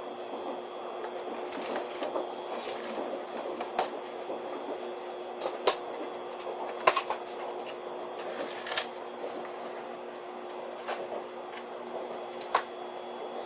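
Steady hum with a held tone from a Shinkansen train car, with scattered sharp clicks and knocks, the loudest about seven and nine seconds in and again near the end.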